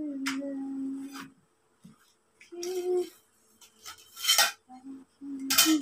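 Metal tubes of a telescopic clothes rack clinking and scraping as they are handled and fitted together, four times, the last two loudest. A woman hums long held notes between the clinks.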